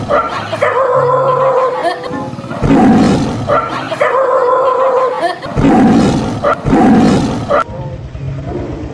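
A dog barking, alternating with repeated lion roars dubbed in as sound effects.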